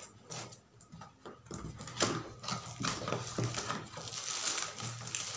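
A small cardboard box being opened and handled by hand: its flaps pulled open and the box and its contents knocked about, giving a run of irregular taps, clicks and rustles that start about a second and a half in.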